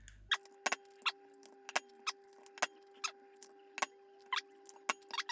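Eggs being cracked on the rim of a ceramic bowl, sped up: a quick, irregular run of sharp shell cracks and taps, with a steady hum beneath.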